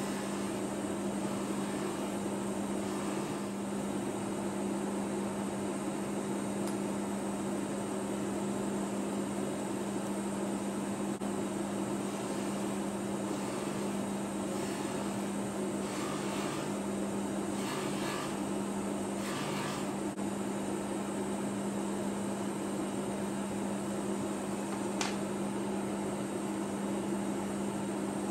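Bench polishing motor running steadily with a buffing mop while a watch case is buffed, a constant hum with one strong steady tone. There are a few brief bursts of louder hiss about two-thirds of the way through and a single sharp click near the end.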